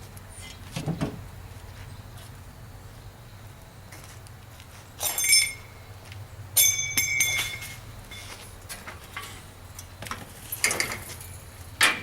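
Metal pieces clanking and knocking several times. The two loudest clanks, around the middle, ring on briefly with a bright metallic tone. A steady low hum runs underneath.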